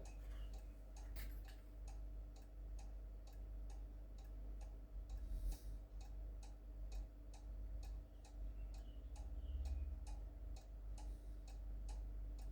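Mechanical cuckoo clock ticking with a steady, evenly spaced tick-tock: the pendulum swinging in beat now that the clock has been levelled.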